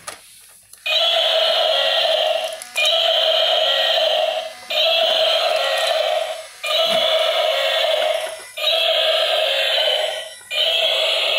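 Battery-operated walking gorilla toy playing a looped electronic sound from its built-in speaker, in back-to-back bursts of about two seconds with brief breaks, starting about a second in.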